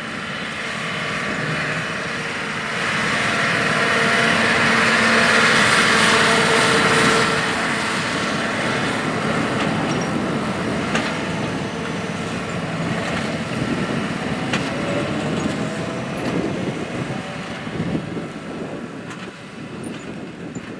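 John Deere R4045 self-propelled sprayer driving across a field. Its running sound grows louder to a peak several seconds in and then slowly fades as it moves away.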